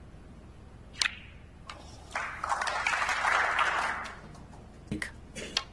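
A sharp click of a snooker shot, cue and ball, about a second in. Then a short spell of audience applause, and two light knocks near the end.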